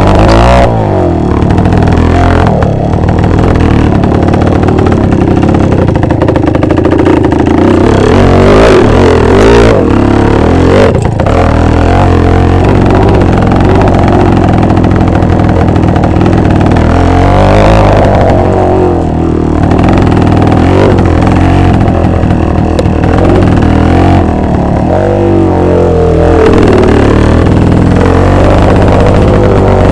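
Two-stroke motorcycle engine running hard and revving, its pitch rising and falling again and again.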